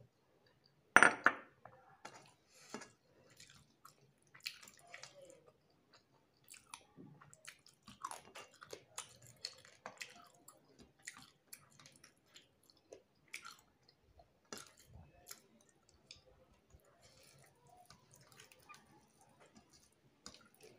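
Close-miked eating sounds: a loud slurp from a glass bowl of dal about a second in, then steady irregular chewing and lip-smacking, with soft squelches of fingers mixing rice and curry on a plate.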